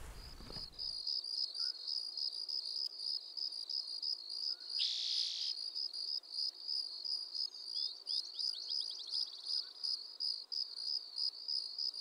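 Crickets chirping in an even, high-pitched rhythm of about four chirps a second, with a short hiss about five seconds in.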